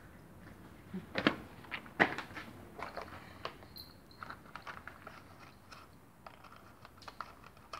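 Plastic compartment organiser box of heat-shrink tubing being handled and rummaged through: irregular light clicks and rattles of plastic, with two sharper knocks in the first couple of seconds.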